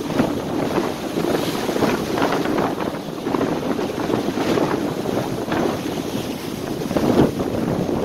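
Gusty wind buffeting the microphone, over surf washing and breaking along the base of a stone breakwater. The noise swells and drops unevenly with the gusts.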